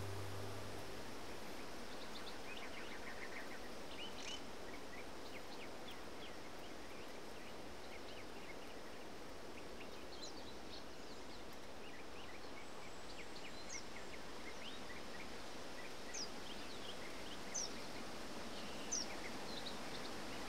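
Outdoor field ambience: a steady soft hiss with scattered short bird chirps and calls, and a few sharp descending whistled calls in the second half.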